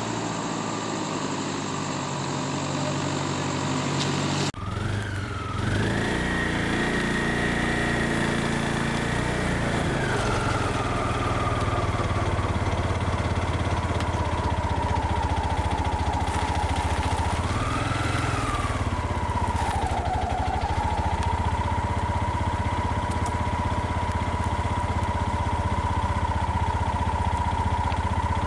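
A vehicle engine running near idle, with a steady whine that drifts up and down in pitch. The sound changes abruptly about four and a half seconds in.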